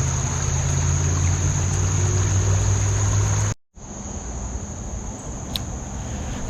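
Steady high-pitched insect chorus over a low rumble. A little past halfway the sound cuts out completely for a moment, and when it returns the low rumble is gone and only the insect drone and a quieter outdoor background remain.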